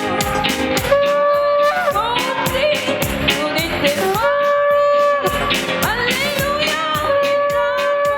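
Music with a steady beat and a melody of long held notes joined by sliding pitches.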